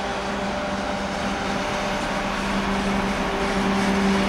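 2TE25KM twin-section diesel locomotive passing with a freight train: steady diesel engine drone with a strong hum, plus the rumble of wheels on rail. It grows louder toward the end as the locomotive goes by.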